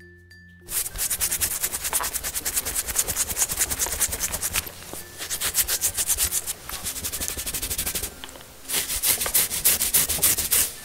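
A sponge scrubbing the wet, shampooed fur of a plush toy dog: fast rubbing strokes that start about a second in, with a few short breaks.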